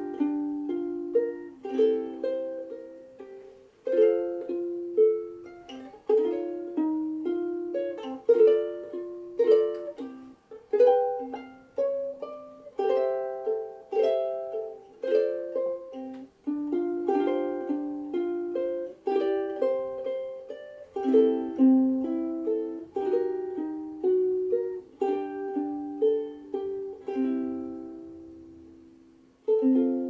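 Sumi UK-3KT soprano ukulele with a curly Hawaiian koa body, fingerpicked solo: a melody of plucked notes over chords, each note ringing and decaying. Near the end a chord is left to ring out and fade before a new chord is struck.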